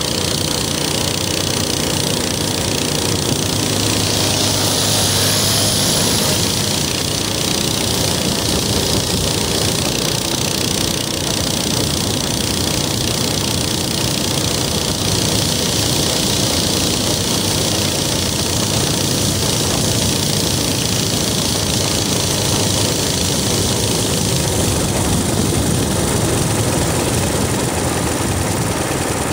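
Minibike's small engine running steadily at cruising speed, with wind rushing over the microphone.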